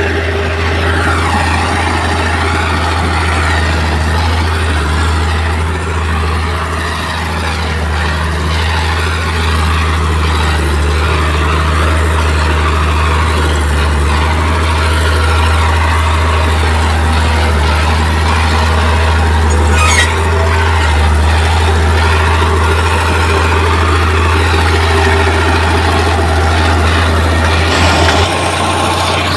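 Heavy earthmoving machinery's diesel engine running steadily, with one sharp click about twenty seconds in.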